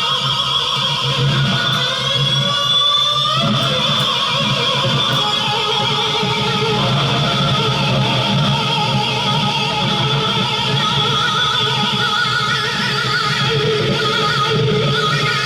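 Guitar music, strummed and sounding like electric guitar, with a sliding rise in pitch about two to three seconds in.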